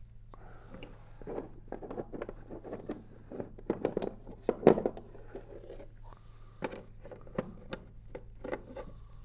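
Handling sounds: rustling and scraping with a run of small clicks and knocks as objects are picked up and set in place, the loudest knock about four and a half seconds in.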